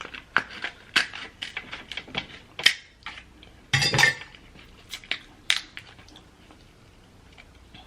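Cutlery clicking and tapping against a plate while eating, a string of sharp taps with a louder knock about four seconds in, thinning out after about five and a half seconds.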